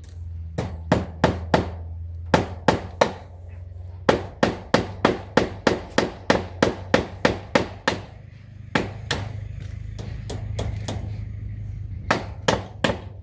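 Hammer driving nails into old wood to hold fence wire. The blows come in quick runs of about three a second, with short pauses between runs, over a steady low hum.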